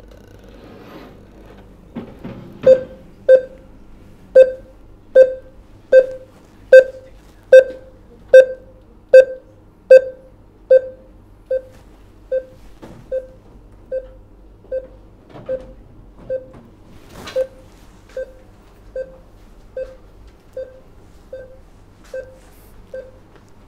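Neurofeedback training software's reward beeps: short mid-pitched beeps repeating about once every 0.8 seconds, starting about two and a half seconds in and growing quieter about halfway through. Each beep is operant-conditioning feedback telling the brain it is holding the trained attention state.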